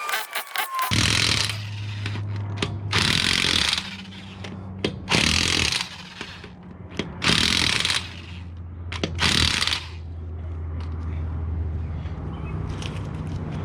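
Impact wrench driven in five short bursts, tightening nuts during a wheel spacer install, with a steady low hum underneath.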